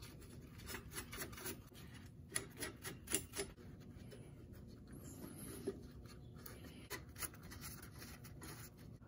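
Hex nuts being threaded by gloved hand onto the ends of trailer axle U-bolts: faint small metallic clicks and scraping, with a brief cluster of taps about 3 seconds in and scattered ones after.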